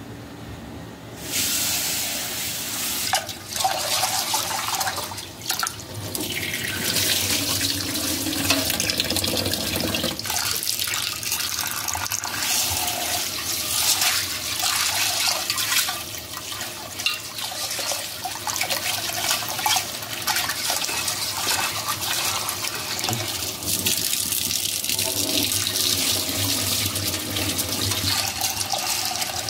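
Water from a kitchen tap running into a pot in a stainless steel sink, splashing as the contents are swished and rinsed by hand. The tap comes on about a second in, with a few knocks soon after.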